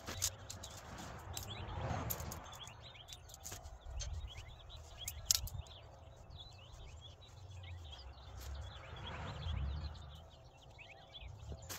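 Small birds chirping over and over in the background. Tent fabric rustles as it is handled, swelling about two seconds in and again near the end, with a couple of sharp clicks, one of them about five seconds in.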